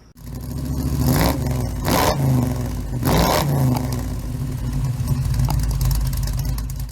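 2010 Ram 1500's 5.7-litre Hemi V8 running and blipped three times, rising briefly in pitch about one, two and three seconds in. The engine is logging a cylinder-5 misfire code (P0305).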